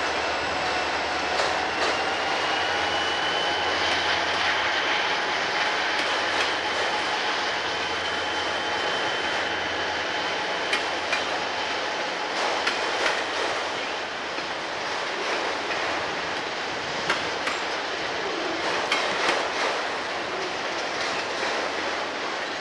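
A Conrail freight train passing close by: several diesel locomotives running, then autorack cars rolling past with wheels clicking over rail joints. A steady high squeal sounds through the first half, and the clicks become more frequent in the second half.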